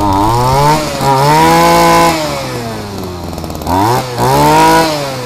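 Small four-stroke petrol engine of a portable water pump being revved. It climbs quickly and is held high for about a second, drops back, then is blipped up twice more near the end.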